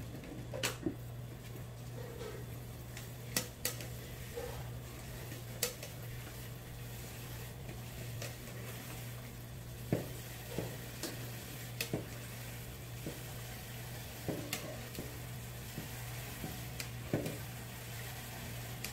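Bowls and utensils knocking and clinking now and then, about one sharp knock every second or two, as blanched king oyster mushrooms are rinsed in cold water, over a steady low hum.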